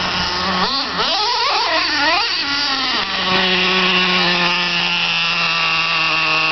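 Small nitro engine of a radio-controlled truck revving up and down in quick sweeps, then holding a steady high-pitched drone from about halfway through.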